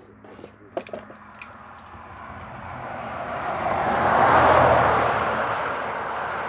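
A motor vehicle passing by: a rumbling noise that swells for a few seconds, peaks about four and a half seconds in and then fades, after two sharp clicks about a second in.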